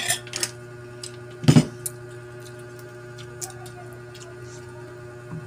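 Tableware during a meal: a few light clinks of a spoon on a plate at the start, a dull thump about one and a half seconds in, then scattered small clicks over a steady low hum.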